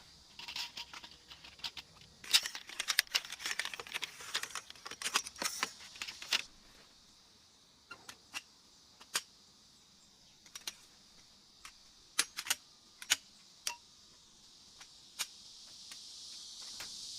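A flurry of small sharp clicks and taps, dense for the first few seconds and then scattered, over a steady high hiss.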